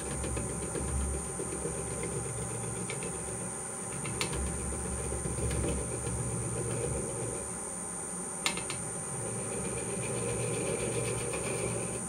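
Wood lathe running while a turning tool cuts the foot of a spinning oak bowl: a steady hum and rush that swells and eases with the cut. Two sharp ticks come about four seconds in and again about eight and a half seconds in.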